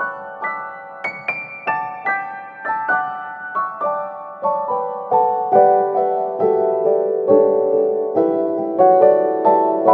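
Piano music: a slow melody of single notes struck one after another.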